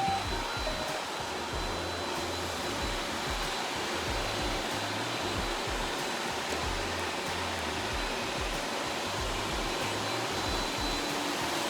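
Robot vacuum cleaner running: steady suction-fan noise with a thin high whine, over a low hum that comes and goes.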